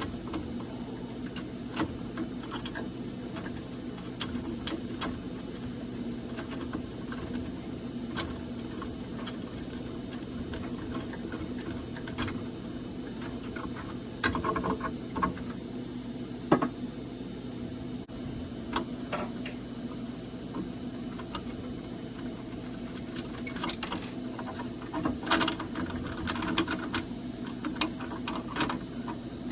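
Steady low machine hum with scattered clicks and light knocks, in louder clusters about halfway through and near the end.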